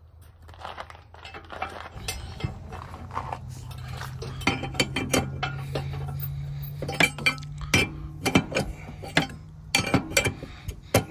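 Steel combination wrench clinking and clicking against the bolts and steel frame of a John Deere planter row unit while bolts are run down, a string of sharp metallic clinks that grows busier through the second half, over a low steady hum.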